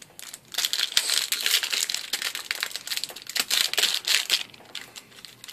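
Foil wrapper of a Yu-Gi-Oh! Premium Gold booster pack crinkling and tearing as it is pulled open by hand: a dense run of crackles that dies down near the end.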